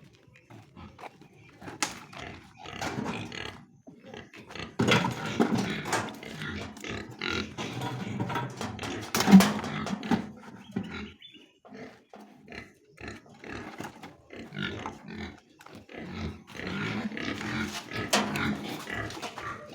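Pigs grunting in irregular calls, the loudest about nine seconds in.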